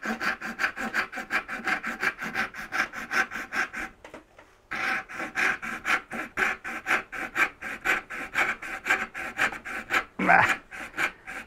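A hand-sharpened western dovetail backsaw cutting a small board by hand in quick back-and-forth strokes, about five a second, with a short break about four seconds in. A brief falling-pitched sound comes near the end.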